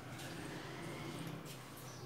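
Fingers mixing dry flour in a glass bowl, a faint soft rustling with a few light taps, over a steady low hum.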